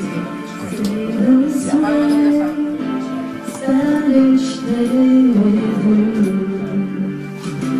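A woman singing a slow melody into a handheld microphone over recorded backing music, her voice amplified, with notes held and gliding between pitches.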